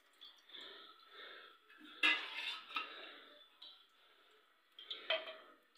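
A steel ladle clinking and scraping against metal pots while cooking oil is ladled into a pressure cooker, with two louder clanks: one about two seconds in and one near the end.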